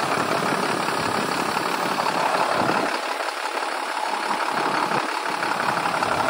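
International DT466 7.6-litre diesel engine idling steadily, heard close up at the front of the engine by the belt pulleys.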